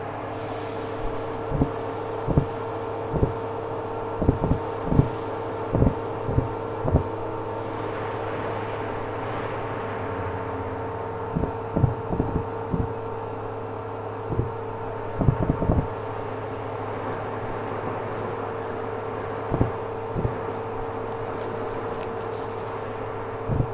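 Vacuum cleaner running steadily through a hose wand, sucking cotton balls, glitter and paper confetti off a carpet, with irregular sharp clicks and clatters as pieces rattle up the tube. A brighter hiss comes in for a few seconds past the middle.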